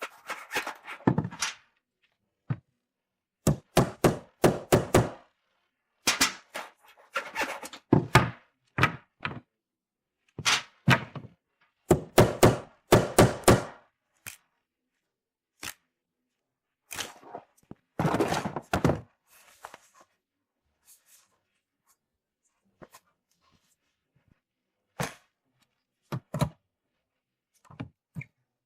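Cartoon sound effects: runs of quick knocks and thuds, several strikes at a time, in bursts over the first twenty seconds, thinning to a few scattered small clicks and taps.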